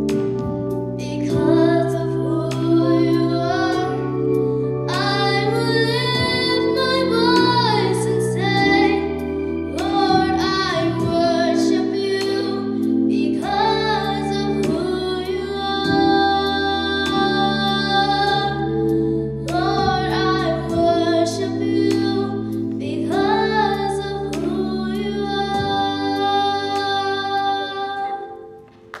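A young girl singing a solo vocal into a microphone over sustained instrumental accompaniment; the song fades out and ends shortly before the end.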